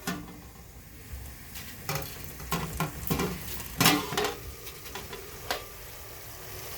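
Metal pot and lid clinking: about six knocks, each ringing briefly, bunched in the middle with one more a little later. Under them the meat and tomatoes sizzle faintly as they steam in the covered pot.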